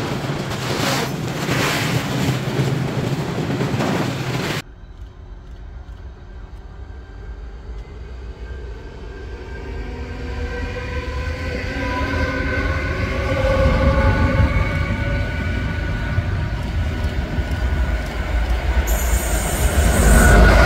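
Freight train of hopper wagons rolling past at speed, a loud, steady rush of wheels and wagon noise, cut off abruptly about four and a half seconds in. Then an electric locomotive hauling a passenger train approaches round a curve, with wavering tones and a low rumble that grows loudest as it passes close by near the end.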